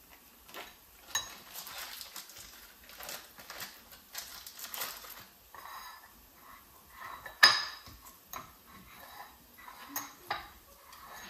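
A utensil clinking and scraping against a small bowl as softened cream cheese is scooped into it and worked, with scattered light knocks and one sharper clink about seven seconds in.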